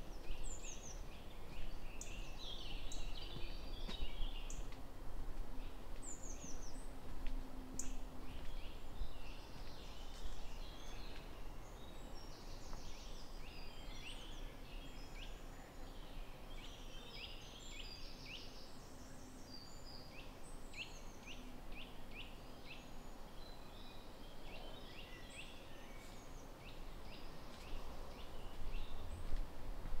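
Several small songbirds singing and calling at once, with many short chirps, quick trills and rapid runs of notes overlapping throughout, and a faint low hum coming and going underneath.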